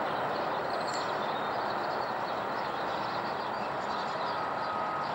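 Steady, even roar of a Boeing 737-300's CFM56 jet engines as the airliner passes overhead on approach. Near the end a steady single-pitched beep begins.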